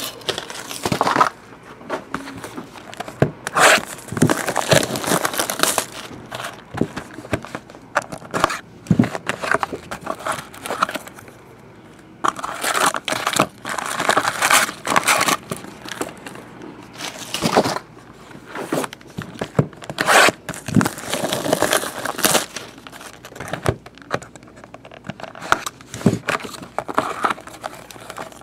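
Foil trading-card packs crinkling and rustling in irregular bursts as they are handled and pulled out of an opened box.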